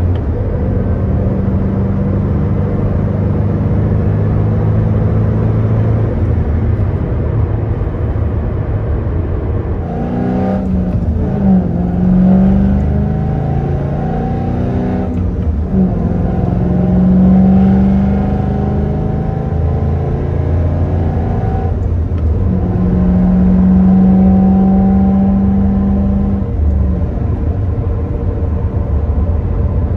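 Ford Mustang GT's 4.6-litre three-valve V8 running through an axle-back exhaust, with long-tube headers and an off-road H-pipe, so no catalytic converters. The engine holds a steady note at first, then from about ten seconds in its pitch rises and falls several times as it is revved or accelerated.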